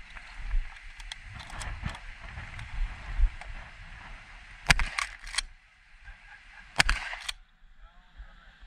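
Two shotgun shots about two seconds apart, with two quicker sharp clacks just after the first. A steady rushing noise runs before the shots.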